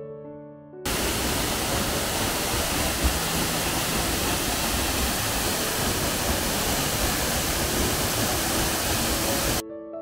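Waterfall rushing: a loud, steady hiss of falling water that cuts in about a second in and stops abruptly near the end, with soft piano music before and after.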